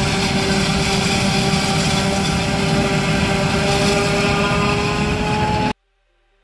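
Heavy farm machine's engine running steadily with a constant whine over its noise, which cuts off suddenly about five and a half seconds in.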